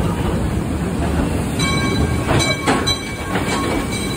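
Calico Mine Train ride cars rolling along their track with a steady low rumble and a few clacks. About a second and a half in, a steady high tone sounds for about a second and a half, then fades.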